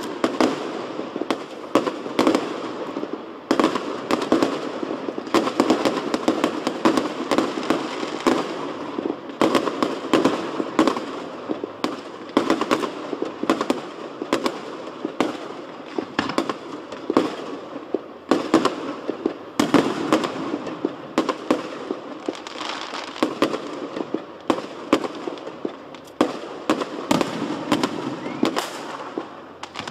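Fireworks display: aerial shells bursting one after another, several bangs a second overlapping without a break.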